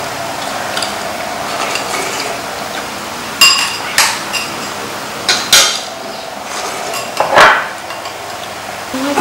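Chopsticks and spoons clinking against ceramic rice bowls and a metal pan during a meal: several sharp, ringing clinks, with one longer, louder clatter about seven seconds in, over a steady hiss.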